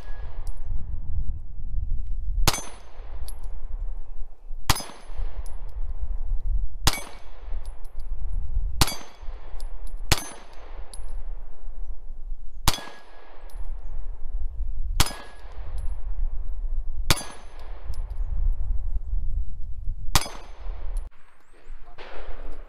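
Nine shots from a semi-automatic pistol, fired singly at a slow, even pace about two seconds apart, each shot followed by a long echo that fades away.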